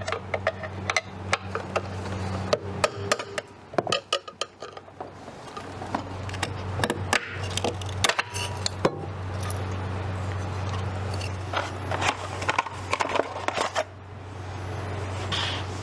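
Irregular clinks, clacks and scrapes of hand tools and parts being handled and set down, over a steady low hum.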